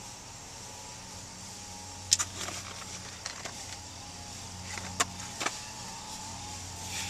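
Sharp clicks and knocks of a hard plastic battery blister pack being handled: a pair about two seconds in, then two more about five seconds in. Under them runs a steady low hum inside the vehicle cab.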